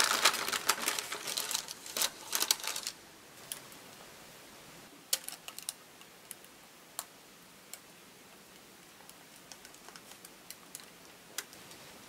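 Wire whisk clicking rapidly against a glass mixing bowl for about three seconds, then scattered light taps and clicks while thick chocolate batter is poured from the bowl into a parchment-lined metal loaf tin.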